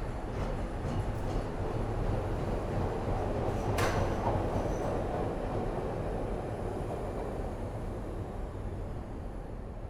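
Chicago L elevated/subway train departing, its rumble and rattle building to a peak about four seconds in and then fading away, with a brief sharp metallic squeal at the peak.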